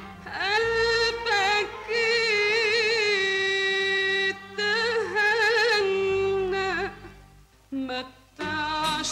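A woman singing a slow, ornamented Arabic melody, holding long high notes with wide vibrato over instrumental accompaniment. The singing pauses briefly about seven seconds in before the music picks up again.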